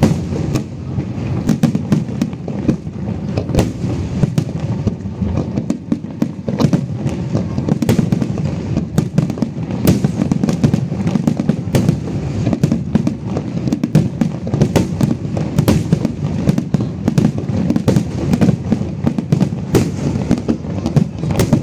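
Fireworks display in a dense barrage: many sharp cracks and bangs in quick succession over a continuous low rumble of shells bursting.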